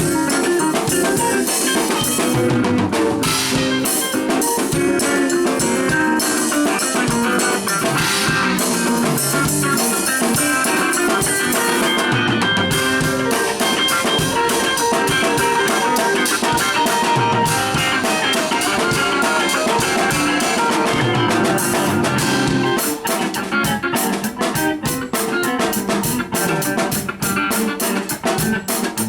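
Music with a drum kit and guitar, a steady beat; the drumming turns more broken and choppy about two-thirds of the way through.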